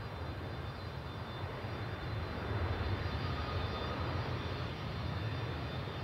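Distant jet airliner engines running with a low rumble that grows louder over the first couple of seconds, then holds steady.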